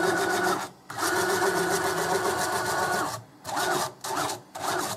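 Stepper motor driving a DIY CNC router axis along its ball screw: a steady whine in two long moves with a short stop between them, then three short moves near the end. It sounds like something's loose in there, a jangly, rattly bearing in the screw's bearing block, which the builder believes he damaged by tapping it with a hammer.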